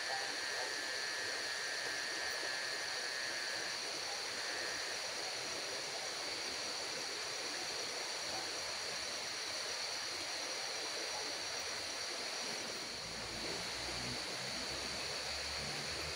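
Steady rushing of a river, with a steady high-pitched buzz above it. A few low rumbling thuds come in the last few seconds.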